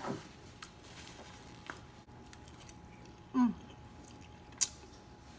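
A woman eating noodles: quiet chewing and slurping, with two short falling hums, one at the start and one about three and a half seconds in, and a few small sharp clicks.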